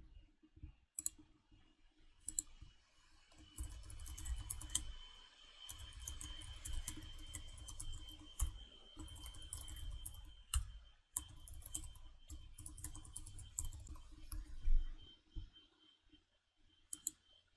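Typing on a computer keyboard with scattered mouse clicks, a dense run of keystrokes over a low dull thudding through most of the middle.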